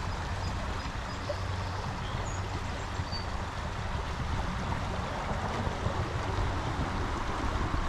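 Small stream's white, splashy riffle water rushing steadily.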